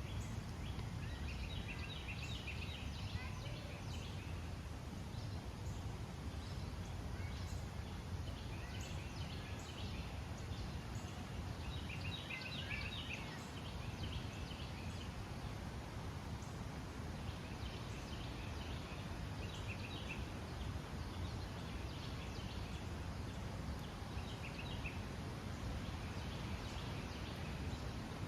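Forest birds calling: repeated short runs of quick, high chattering notes every few seconds, over a steady low background rumble.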